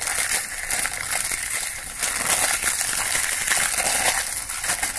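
Clear plastic wrap from a fragrance box being crinkled and scrunched in the hands close to the microphone: a loud, dense, continuous crackling.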